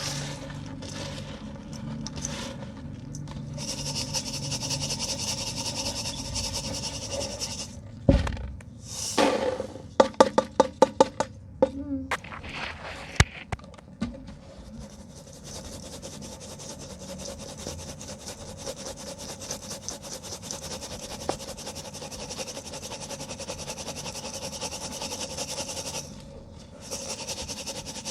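Pure cement lumps being crumbled and rubbed by hand, a continuous gritty scraping and crunching. About ten seconds in comes a quick run of about a dozen sharp cracks, with single knocks just before and after it.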